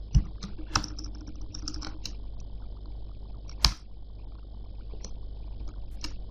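Computer keyboard keystrokes: a few scattered taps in the first two seconds, one sharper key strike a little before the four-second mark, and another tap near the end.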